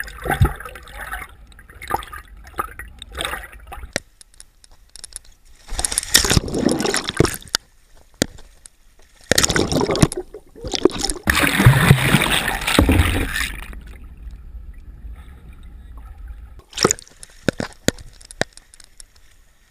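Seawater sloshing, splashing and gurgling around a waterproof action camera as it dips under the surface and comes back out, in several loud rushes with quieter stretches between.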